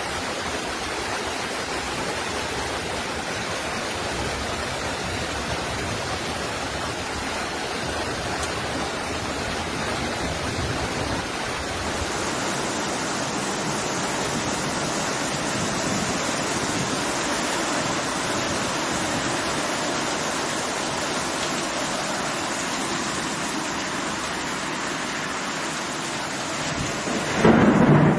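Steady rushing of storm floodwater, an even noise with no pauses, its texture shifting about twelve seconds in. A louder low surge comes near the end.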